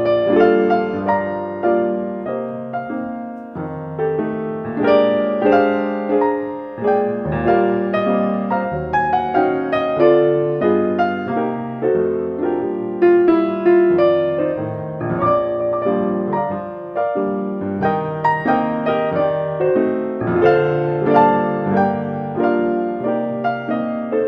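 Solo piano music: a gentle tune played over chords, with notes struck and left to ring.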